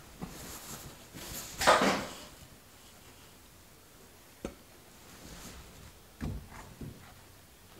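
Handling noises from fitting a car headliner and its listing rods: a rustling scrape about two seconds in, a sharp click midway, and two soft knocks near the end.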